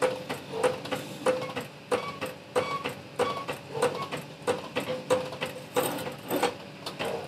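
Hydraulic trolley floor jack being pumped by hand, about three strokes every two seconds. Each stroke is a click followed by a short ringing tone as the jack saddle rises to take the weight of the transmission.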